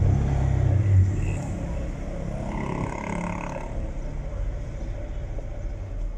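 A motor vehicle engine running close by. It is loud for about the first second, then eases to a lower, steady rumble.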